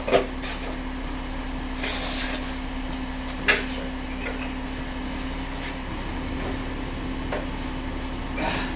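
A few metal knocks and clunks, the sharpest about three and a half seconds in, as jack stands are pulled out from under a stripped car body. A steady low hum runs underneath.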